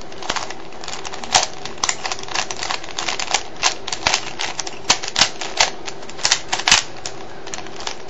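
3x3 Rubik's cube layers being turned quickly by hand, a rapid, irregular run of plastic clicks and clacks as a move sequence is carried out.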